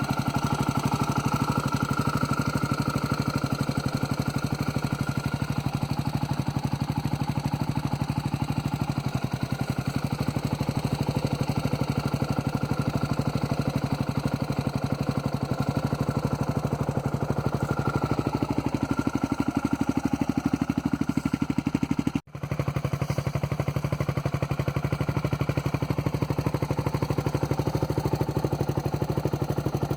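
Yamaha Raptor 660R ATV's single-cylinder four-stroke engine running steadily at a low, even speed, with a brief break about two-thirds of the way through.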